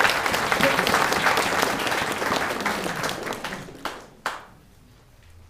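A congregation applauding: dense clapping that thins out and dies away about four seconds in, with one last single clap just after.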